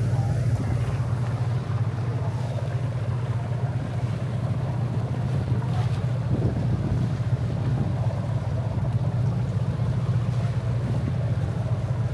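Ferry engine running steadily: a constant low drone, with wind and water noise over it.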